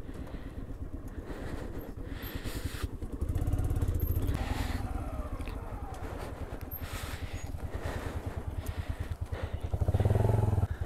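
Motorcycle engine running at low speed, its firing pulses steady, with the revs rising briefly about three seconds in and again just before the end.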